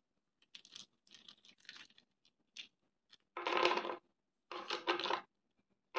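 A handful of small coloured pieces handled in cupped hands on paper: a few light clicks and taps, then two louder rattles about three and a half and five seconds in as they are shaken together.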